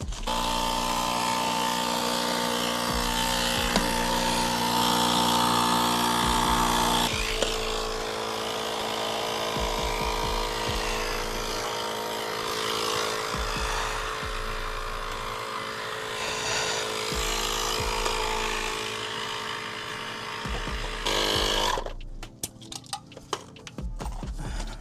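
Small electric air compressor motor running steadily with a hiss, inflating a freshly mounted fat tire. It shifts pitch about seven seconds in and cuts off a few seconds before the end.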